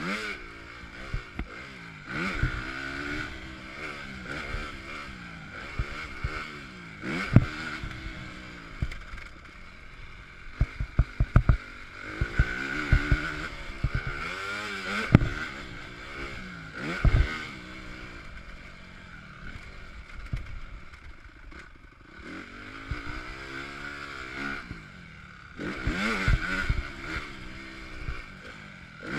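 2015 Honda CRF250 motocross bike's single-cylinder four-stroke engine being ridden hard, revving up and falling off over and over as the rider works the throttle. Several sharp knocks break in, a quick cluster of them a little before the middle.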